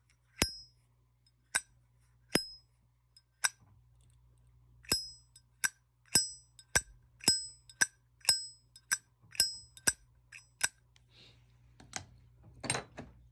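Zippo lighter lid flicked open and snapped shut again and again: about sixteen sharp metallic clinks with a bright ring, irregularly spaced, with a brief rasping burst near the end. The lighter has gone two weeks without maintenance.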